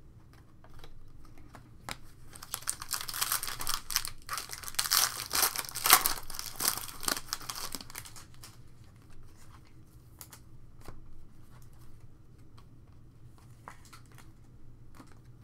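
Crinkling and tearing of trading-card pack wrapping, dense and loudest from a few seconds in until about eight seconds, then light clicks and rustles as the stiff Prizm cards are slid and flipped in the hand.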